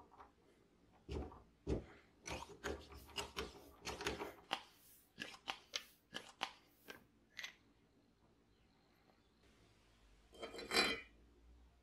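Small metal parts of a vintage petrol blowtorch's hand pump being fitted by hand: a run of light clicks and taps as the pump rod and knurled cap are worked into the tube. After a quiet stretch comes a short, louder scraping rattle about ten and a half seconds in, as a cap goes onto the tank's threaded neck.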